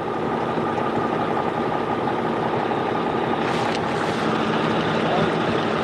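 A fishing boat's engine running steadily: an even, unbroken drone with a constant hum.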